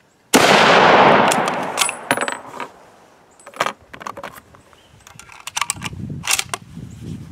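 A single shot from a Springfield 1903A3 rifle in .30-06, its report echoing away over about a second and a half. Then come sharp metallic clicks and a brief light ring as the bolt is worked and the spent case comes out, and more clacks of the bolt a few seconds later as the next round is single-loaded.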